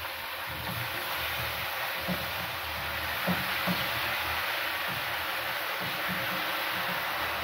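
Meat, potatoes and tomato sizzling steadily in a frying pan on a gas stove while being stirred with a wooden spoon, with a few light knocks of the spoon against the pan.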